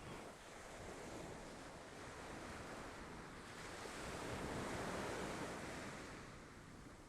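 Ocean surf: one wave's wash swells to a peak about two-thirds of the way through, then fades as it recedes, with some wind.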